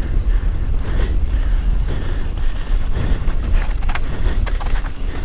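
Mountain bike descending a dirt trail at speed: wind buffeting the camera microphone over a steady rumble of tyres on dirt. Around three to four and a half seconds in, a cluster of clicks and rattles comes from the bike jolting over bumps.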